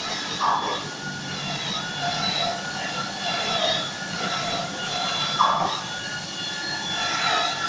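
Steady machinery hum with several high whining tones, broken by short bursts of noise about half a second in and again around five and a half seconds.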